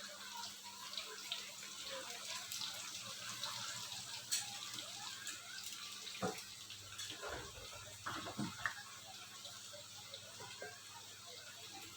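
Sweet potato pieces frying in hot oil: a faint, steady sizzle with small crackles, and a few knocks between about six and nine seconds in.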